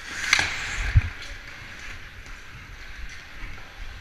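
Ice skate blades scraping and carving on the rink ice, with a short sharp hiss of a skate digging in shortly after the start and a dull thump about a second in.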